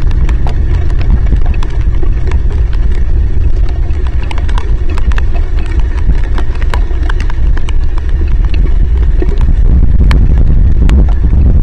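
Heavy rain striking the outdoor camera and its microphone, heard as irregular sharp drop ticks over a loud, steady low rumble.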